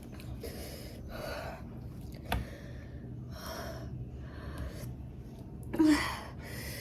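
A woman gasping and panting hard through her mouth, about one breath a second, with a short voiced whimper near the end: the reaction to the burning heat of the extremely spicy Jolo chip she has eaten. A single sharp click sounds a little after two seconds.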